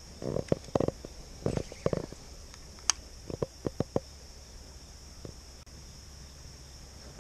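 Handling noise from a spinning rod and reel being cast and retrieved: a run of short, dull thumps in the first two seconds, then a few sharp clicks about three to four seconds in. A steady high insect drone runs underneath.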